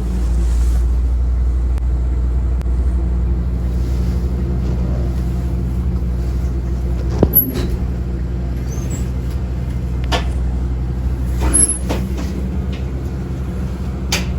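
Paratransit vehicle's engine running steadily, heard from inside the cabin as a low hum. Several short sharp clicks and knocks come through it in the second half.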